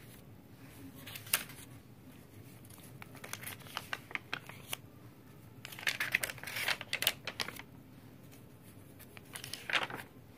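Paper pages of a handmade junk journal being turned and handled: scattered dry rustles and crisp flaps, with a longer burst of rustling a little past halfway and another near the end.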